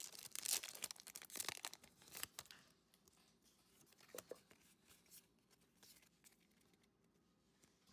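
Foil wrapper of a Pokémon trading-card booster pack being torn open and crinkled: a dense run of crackling for about two and a half seconds, then a few faint taps and near quiet.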